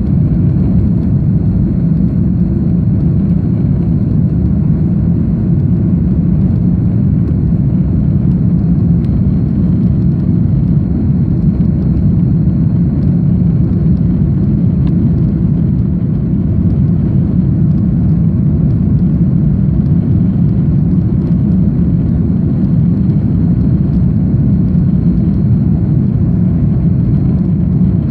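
Steady, unbroken drone of a twin-engine Airbus A310 airliner's jet engines and airflow, heard from inside the passenger cabin, with a faint high steady whine above it.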